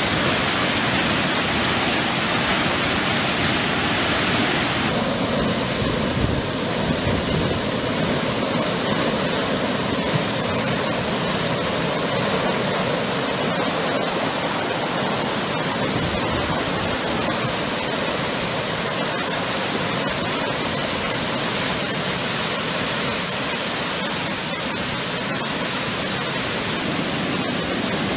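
Steady rushing noise of a muddy flash flood and then a mud-and-debris flow pouring down a stone-lined channel. The sound changes abruptly about five seconds in, where one torrent gives way to the other.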